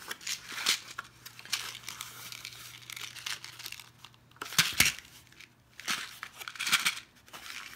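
Paper and cardboard handling: small cardboard Nerds candy boxes scraping and rubbing against a cardstock box as they are pushed and fitted in, in irregular rustling bursts, with a couple of sharper knocks past the middle.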